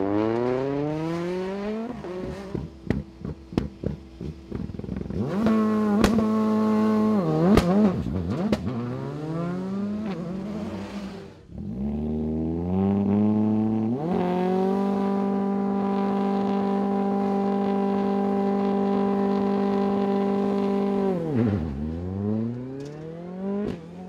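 Rally cars' turbocharged four-cylinder engines at a stage start: a Citroën DS3 rally car accelerates away, its revs rising and falling through quick gear changes with sharp cracks from the exhaust. Then a Ford Fiesta rally car is held at high, steady revs for about seven seconds before it launches, the pitch dropping and climbing again as it accelerates away.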